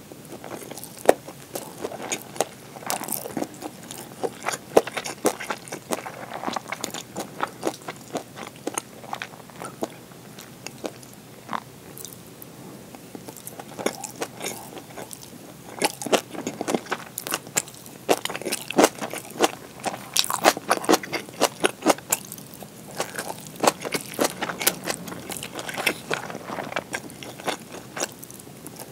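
Close-miked eating sounds: a person chewing and biting a meal of rice, pan-fried gyoza and kimchi, with many irregular sharp crunches and clicks of the mouth.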